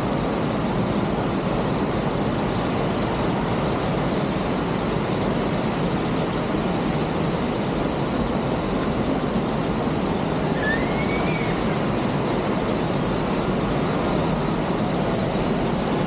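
Steady roar of a large waterfall, an even rushing noise with no breaks. A faint short rising chirp sounds briefly about two-thirds of the way in.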